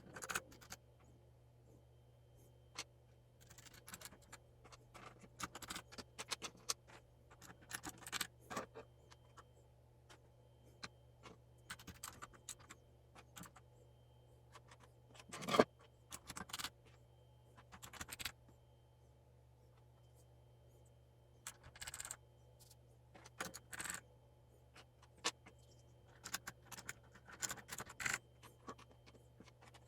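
Irregular clicks, taps and scrapes of an ABKO Hacker K600 RGB mechanical keyboard's plastic parts being handled and fitted back together during reassembly, over a low steady hum. The loudest click comes about halfway through.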